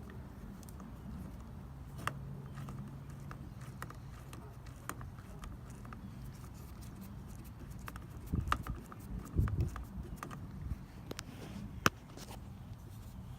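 Scattered light clicks and taps as the propeller and its screw are refitted by hand onto a Native Propel kayak pedal drive with an Allen wrench. A cluster of louder knocks comes about two-thirds of the way through, and one sharp click near the end.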